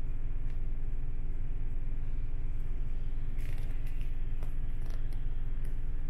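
City bus's diesel engine idling while the bus stands at a red light, a steady low rumble heard from inside the cabin. A few faint clicks and rattles come around the middle.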